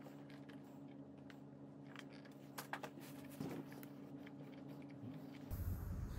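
Faint clicks and crackles of hands handling insulated electrical wires, stripping and twisting the ends at a scooter's handlebar switch, over a steady low hum. The hum changes and grows louder about five and a half seconds in.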